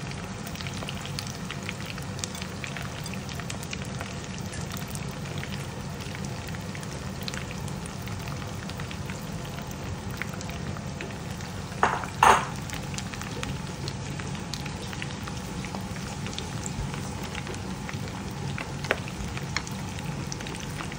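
Chopped roast pork (lechon) sizzling in hot oil in a frying pan, a steady hiss with small crackles and pops. Just past halfway there are two short, much louder sounds close together.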